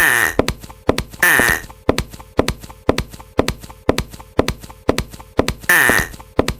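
Japanese railroad crossing warning bell ringing at about two strikes a second, each strike ringing on briefly. Three short, higher-pitched noisy bursts, like cartoon sound effects, come in near the start, about a second in, and near the end.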